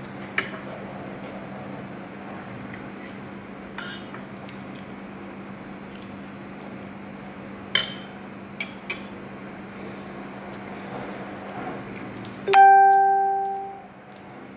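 Spoon and fork clinking against a plate while eating: a few light clinks, then near the end one loud clink that rings out and fades over about a second and a half. A steady low hum runs underneath.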